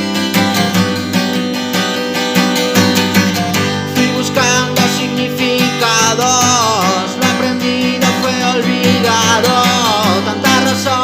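Song music built on strummed acoustic guitar chords. About four seconds in, a sliding melodic line comes in over the chords and returns near the end.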